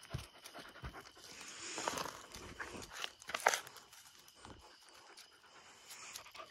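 Puppies panting, with scattered clicks and scuffs of paws on gravel. The loudest clicks come about three and a half seconds in.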